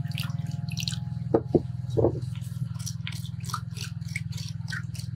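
Water poured from a small clay cup splashing into a clay pot onto salt for about the first second, then a wooden spoon knocking against the clay pot three times and clicking and scraping inside it as it stirs the salt water. A steady low hum runs underneath.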